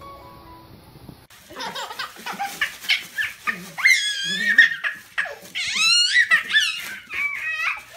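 Soft piano music for about the first second, then a baby squealing and shrieking with laughter in quick, high-pitched, wavering peals.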